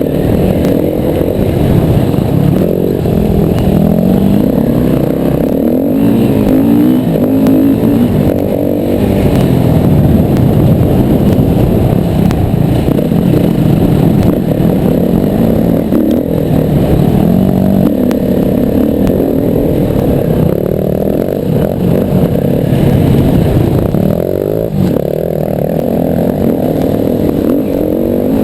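Yamaha WR250R's 250 cc single-cylinder four-stroke engine running hard off-road, its revs rising and falling continuously with throttle and gear changes.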